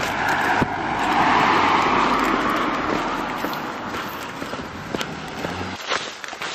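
A car passing close by on the road: tyre and engine noise swells to a peak about a second and a half in, then slowly fades. Near the end the sound cuts to a few footsteps on a dirt path.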